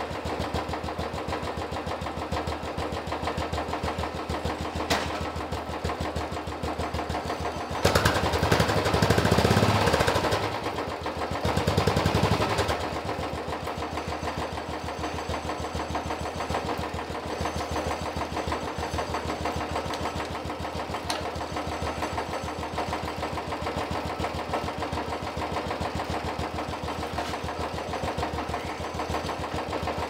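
Royal Enfield Classic 350's single-cylinder engine idling steadily, revved up twice, about eight and twelve seconds in, while it drives the lifted rear wheel on the stand after a rear brake shoe replacement.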